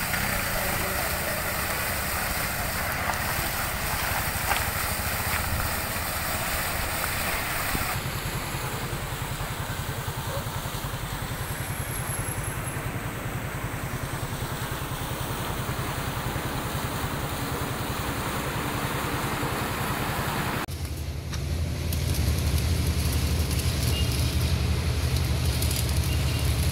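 Water gushing and spraying from a burst water main over a vehicle engine running. The gushing stops after several seconds, leaving the engine running on its own, louder in the last few seconds.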